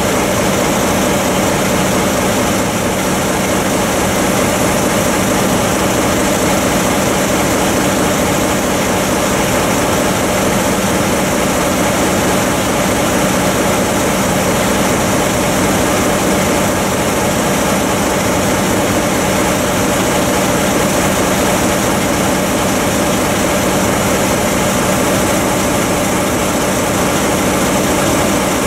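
JR Freight diesel locomotive's engine idling at close range: a steady, even drone with a low hum that does not rise or fall.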